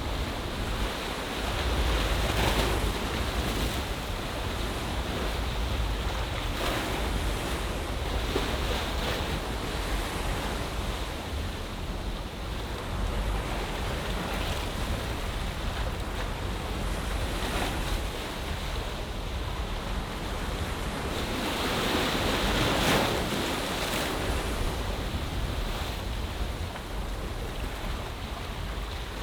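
Ocean waves washing into a bay, the surf swelling every few seconds, with the biggest surge a little after the middle. Wind buffets the microphone as a low rumble underneath.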